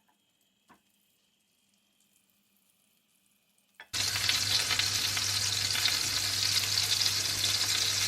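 Near silence with a couple of faint clicks, then about four seconds in a loud, steady sizzle starts abruptly: bread sandwiches dipped in egg and milk frying in a pan.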